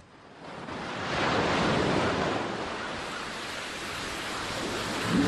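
Ocean surf washing in: a broad rush of waves that swells up about a second in, eases off, then builds again near the end.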